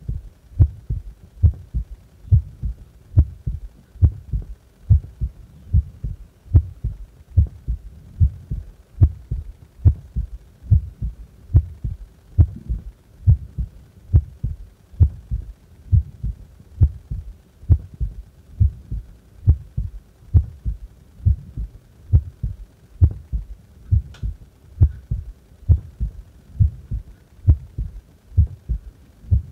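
A human heart beating at rest: steady, regular double thumps (lub-dub), deep and low-pitched.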